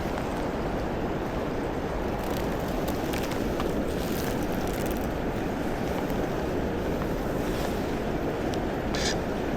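Steady rush of flowing river water, with a few faint short clicks.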